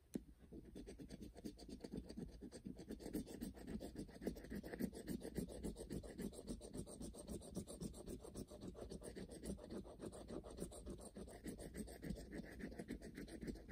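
Coin scratching the coating off a scratch-off lottery ticket's winning-numbers area: a continuous run of quick back-and-forth rasping strokes that starts just after the beginning and keeps going.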